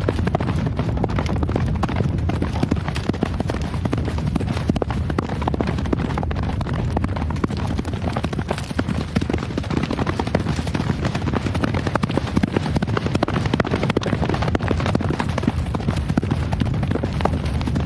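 Horse hooves galloping: a dense, unbroken run of hoofbeats drumming on the ground.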